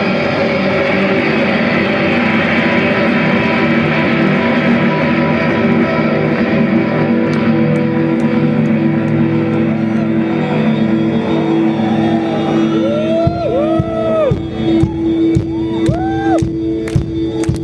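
Post-rock band playing loud instrumental music live, a dense wash of electric guitars. About 13 s in it thins to a single held note with guitar notes swelling and bending over it, and sharp hits begin near the end.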